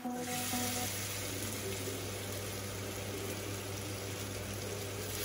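Masala-coated fish slice sizzling in shallow oil on a flat iron tawa: a steady hiss. The tail of background music fades out within the first second.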